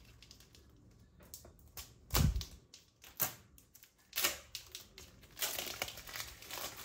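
Scissors snipping and plastic packaging clicking and crackling as a plastic tomato keeper is cut free and handled. A single louder thump comes about two seconds in, and a longer stretch of crinkling comes near the end.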